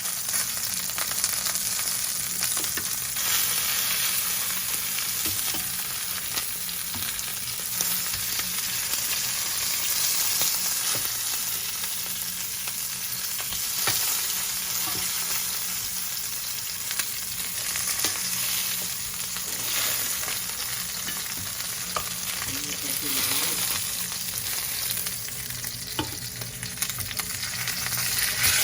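Mutton frying in a hot pan: a steady sizzle with scattered small clicks.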